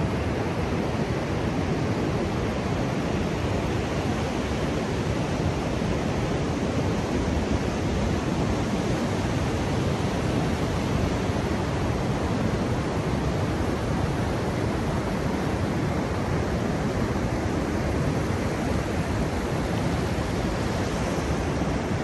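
Ocean surf breaking some way off: a steady wash of noise with no single wave standing out.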